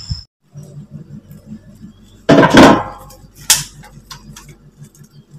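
Large metal bowl clattering and clinking as a hand works through its contents, with one loud clatter about two and a half seconds in and a sharp clink a second later. A low pulsing hum runs underneath.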